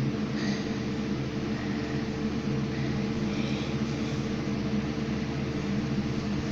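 Steady low machine hum made of several constant low tones, like a household appliance or fan running.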